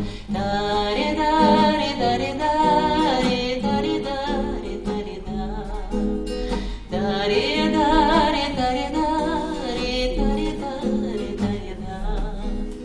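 A woman singing, with long wavering held notes, to her own classical guitar accompaniment.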